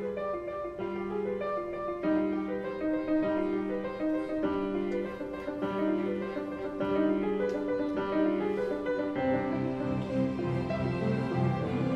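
Background classical music led by piano.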